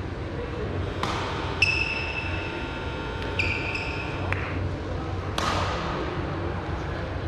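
Badminton racket hits on a shuttlecock, sharp cracks that echo around a large sports hall, three of them spread over several seconds. Between the hits a steady ringing tone lasts about three seconds.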